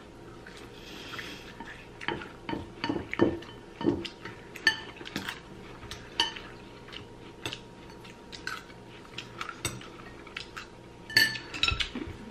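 Metal spoons and chopsticks clinking against ceramic bowls in scattered small knocks while two people eat bowls of clam noodle soup, with noodle slurping. The clinks bunch together near the end.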